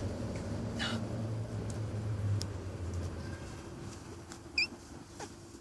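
A domestic cat giving short, high squeaks instead of a full meow: a faint falling one about a second in and a clearer, slightly rising one near the end. A low steady hum runs underneath during the first half.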